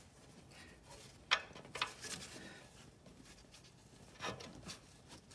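Faint handling noise as an oxygen sensor is unscrewed by hand from the exhaust: light rubbing with a few sharp clicks, the loudest a little over a second in.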